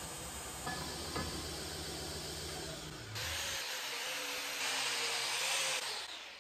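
A belt grinder motor runs steadily with a couple of light knocks of steel tubing. About three seconds in, an angle grinder with an abrasive disc grinds the edge of a square steel tube with a hissing whine, then spins down near the end.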